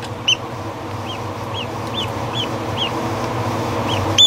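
Repeated short, high peeping from a young waterfowl chick, about two peeps a second with a brief pause near the end, over a steady low hum.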